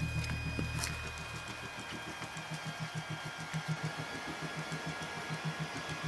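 Low mechanical pulsing, about five beats a second, with faint steady high-pitched tones above it.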